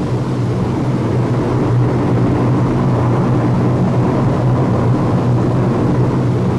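Four-engine Lockheed C-130 Hercules turboprop in level flight: a steady low drone of the engines and propellers.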